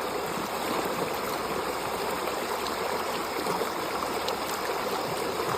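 Stream of water running over rocks, a steady even rush with no breaks.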